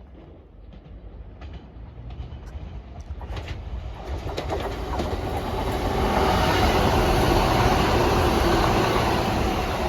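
ScotRail Class 170 Turbostar diesel multiple unit approaching and passing, growing steadily louder over the first six seconds and then holding at full level.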